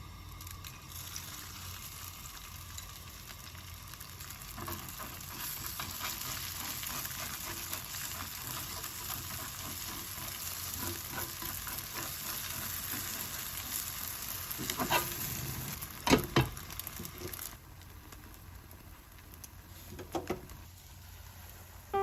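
Food sizzling in a frying pan as it is stirred, the sizzle building a few seconds in and easing near the end. A few sharp knocks sound about fifteen to sixteen seconds in.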